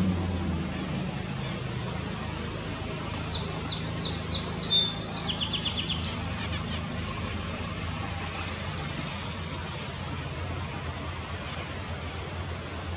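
A songbird sings one short phrase about three seconds in: a few quick high notes sliding down, then a rapid trill, ending with a single sharp note. A steady low hum runs underneath.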